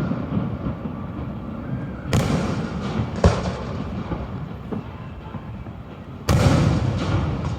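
Aerial fireworks shells bursting overhead: several deep booms and a sharp crack, the loudest about six seconds in, with a continuous rumbling echo between them.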